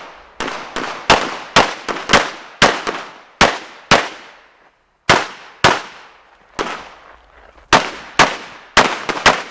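Smith & Wesson M&P9 Pro 9mm pistol firing about twenty rapid shots in quick strings. Each shot is a sharp crack with a short echo, and there is a brief break about halfway.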